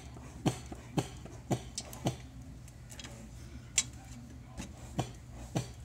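A regular ticking, about two ticks a second with a short pause in the middle, over a low steady hum.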